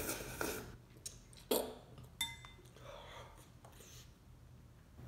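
Noodles slurped off a fork, then a metal fork clinking against a glass bowl with a short ring about two seconds in.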